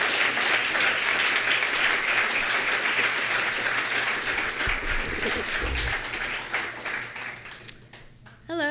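Audience applauding, a dense steady clapping that thins out and dies away over the last couple of seconds.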